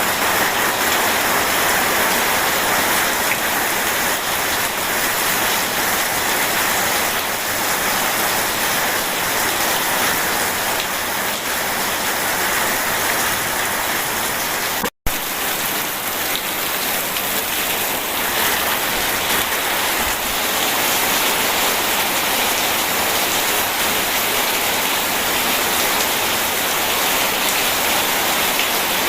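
Steady rain falling, an even dense hiss of drops. About halfway through, the sound cuts out completely for an instant with a click, then resumes unchanged.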